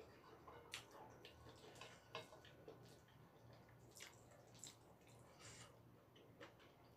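Faint eating sounds: scattered small clicks and taps of chopsticks and a metal spoon against a pan of noodles, with soft slurping and chewing smacks.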